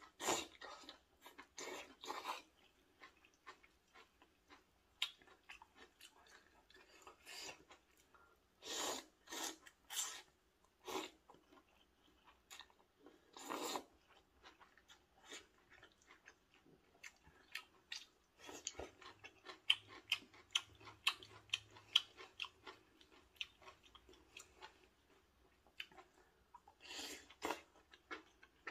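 A person eating rose maratang, noodles in a creamy, spicy broth. She slurps the noodles in several short bursts through the first half, then chews wetly with many small mouth clicks in the second half.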